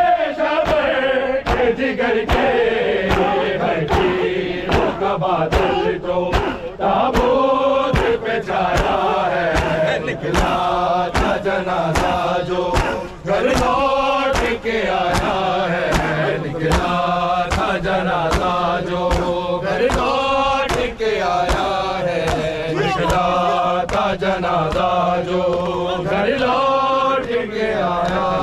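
A crowd of men chanting an Urdu noha in unison, a mourning lament, over loudspeakers. Steady sharp slaps of matam (chest-beating) keep time, a little more than one a second.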